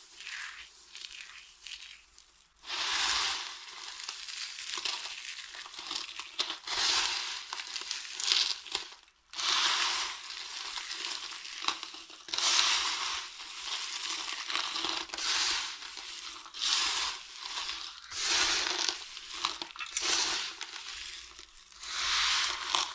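Dry soap being crushed, crunching and crumbling in repeated crackly bouts of a second or two, softer at first, with a brief pause about nine seconds in.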